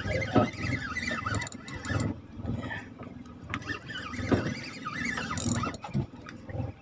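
Large spinning reel cranked under the load of a hooked fish: its gears and drag give a high, wavering whine over irregular low knocks.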